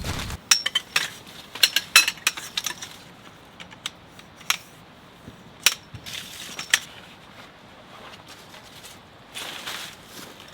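A run of sharp clicks and light clinks, some with a brief ring, closely packed for the first three seconds and then scattered.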